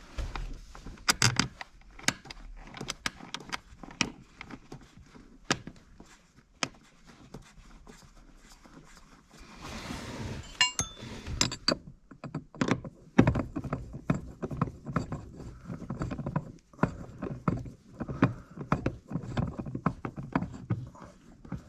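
Irregular clicks, clinks and knocks of a Phillips screwdriver and metal pedal hardware as a screw is driven in while fitting aftermarket racing pedals. The knocks come sparsely at first and more closely together in the second half.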